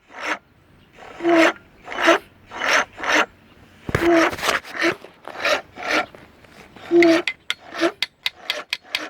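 Johnson V4 115 hp outboard being cranked by its electric starter in a series of short rasping bursts about half a second apart, without the engine catching.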